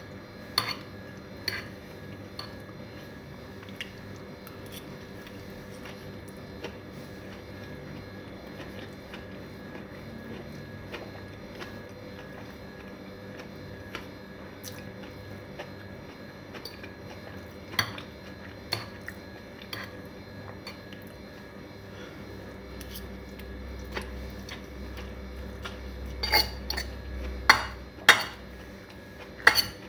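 Metal fork clinking and scraping against a plate of noodles in scattered sharp clicks. The clicks are sparse at first and come several together near the end, over a steady faint hum.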